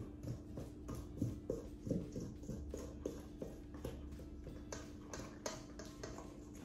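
Small bamboo spoon stirring thin chocolate icing in a stainless steel mixing bowl, knocking and scraping against the side of the bowl about three times a second.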